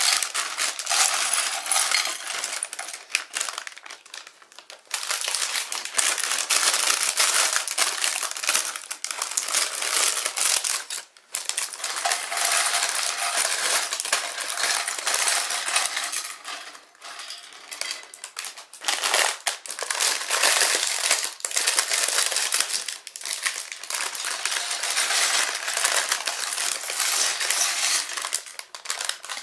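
Plastic parts bags crinkling as they are handled and emptied, with small plastic building bricks clattering onto a ceramic plate. It goes on nearly without a break, pausing briefly a few times.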